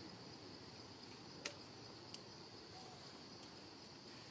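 Faint, steady high-pitched insect drone in the background, with a sharp click about a second and a half in and a smaller click just after two seconds.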